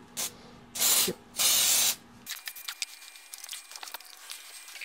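Aerosol can of mold release spraying into a 3D-printed mold in three bursts: a brief puff, then two longer hisses of about half a second each, all within the first two seconds.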